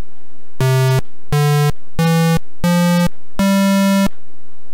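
Square-wave tones from a home-made C++ software synthesizer: five keyboard notes played one after another, each a little higher than the last, the fifth held longest. The tone is buzzy, much sharper and louder than a sine wave.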